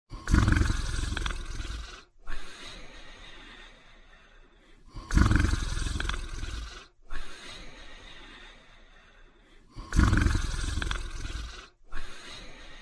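Snoring in sleep: three snores about five seconds apart, each about two seconds long with a strong low rumble, each followed by a quieter breath.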